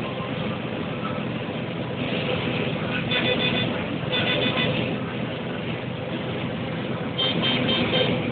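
Tractor and combine engines running steadily during corn harvesting, with grain pouring into a grain cart. Three short bursts of rapid high-pitched beeping cut in over the engine noise, about three, four and seven seconds in.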